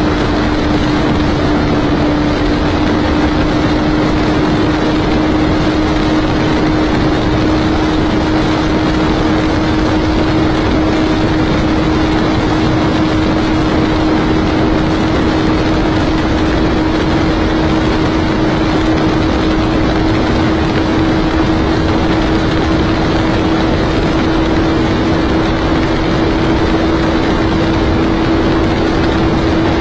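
Motorcycle engine held at high revs in top gear under full throttle, its steady drone creeping slowly up in pitch as the bike gains speed, with heavy wind rush over it.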